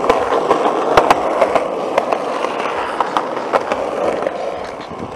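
Skateboards rolling at a skatepark, with a steady wheel roar and frequent sharp clacks of decks and trucks, the loudest about a second in.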